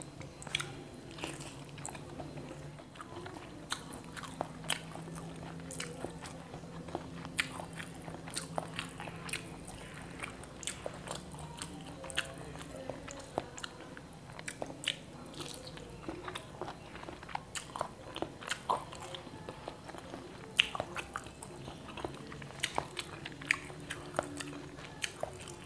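Close-miked eating of soft fried egg dipped in soy sauce and chilli: chewing with many short wet mouth clicks and smacks, over a faint steady low hum.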